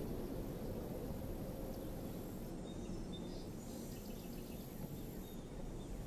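Steady low outdoor background rumble, with a few faint bird chirps around the middle.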